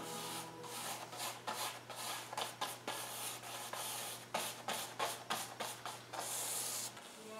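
Paintbrush scrubbing paint across a painting panel in quick, irregular strokes, with one longer swish near the end. A faint steady low hum runs underneath and stops near the end.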